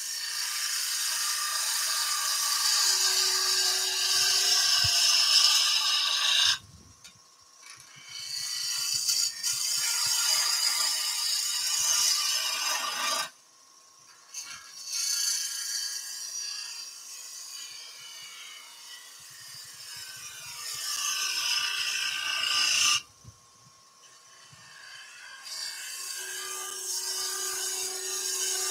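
Spindle gouge cutting a spinning wood blank on a lathe: a hissing cut in four long passes. It breaks off abruptly about six, thirteen and twenty-three seconds in, each time for a short gap, over the lathe's faint steady motor tone.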